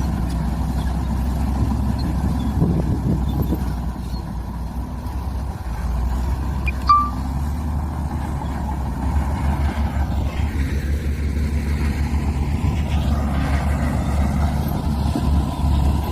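Diesel engines of heavy earthmoving machinery running with a steady low rumble. A brief sharp squeak comes about seven seconds in, and the rumble takes on a quick low pulsing from about nine seconds on.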